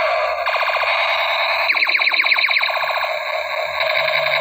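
Battery-powered toy space gun sounding its electronic blaster effect: a loud, harsh, buzzing siren tone, broken twice by runs of quick repeated rising chirps.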